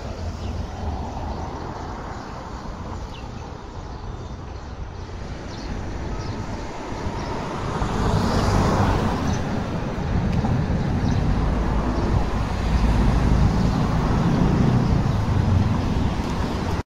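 Street traffic noise: a steady rumble of passing vehicles and tyres, getting louder about halfway through.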